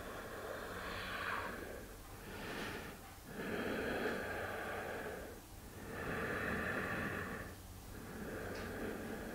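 A woman's slow, deep breathing, about five long breaths in and out with short pauses between them.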